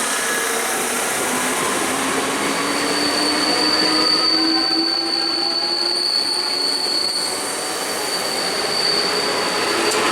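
Electric multiple-unit local train running on the rails, with a high, steady wheel squeal setting in a couple of seconds in and lasting almost to the end, over a low motor whine that slowly rises in pitch.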